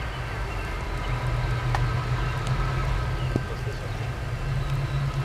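Diesel engine of an approaching streamlined cab-unit locomotive running with a steady low rumble as it pulls a passenger train, with a few faint ticks over it.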